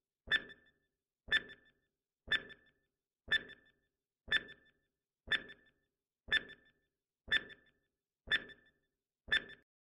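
Countdown timer sound effect: a short tick with a brief ringing tone, repeated once a second, ten times.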